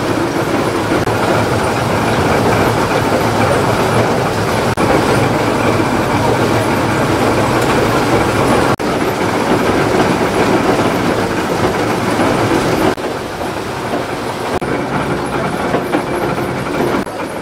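Electric chili-pepper mill grinding dried red chilies into chili flakes: a loud, steady, rattling machine noise that drops a little in level about two-thirds of the way through.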